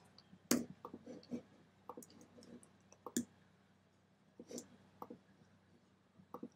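Faint, scattered clicks from computer controls being worked, irregularly spaced, with the sharpest ones about half a second and about three seconds in.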